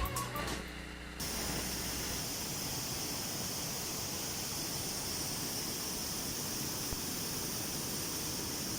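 Steady, even rush of falling water, starting about a second in as the music fades out.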